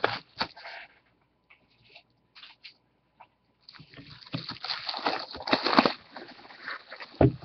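Plastic shrink-wrap being peeled off a sealed trading-card box. It starts with a few faint scratches and ticks as fingers pick at the wrap, then about halfway through comes a long stretch of loud crinkling as the wrap tears away. Near the end there is a soft thump as the box is set down.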